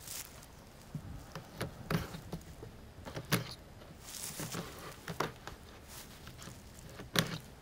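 Razor blade trimming rubber pond liner along the top edge of a pine grow bed: irregular short scrapes and clicks, with a sharper knock near the end.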